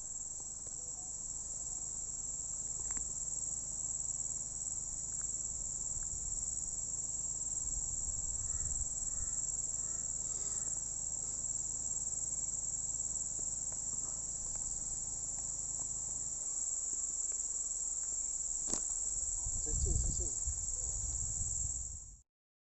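A dense insect chorus in tropical forest, a steady high-pitched drone, with low rumbling beneath it. There is a single sharp click about three-quarters of the way through, and the sound cuts off abruptly just before the end.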